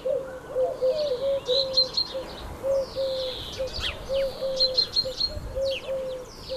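Birds singing: a high song phrase repeats about every second and a half over a lower run of short, evenly pitched notes.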